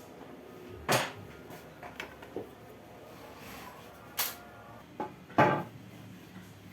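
A few sharp knocks and clatters of wooden pieces being handled and set down on a workbench: four clear knocks, the loudest near the end, with a couple of softer taps between.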